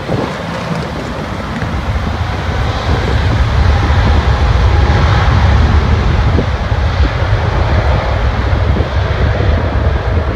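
Boeing 777 jet engines at takeoff power on the takeoff roll: a deep, steady rumble with a hiss over it, growing louder about two seconds in.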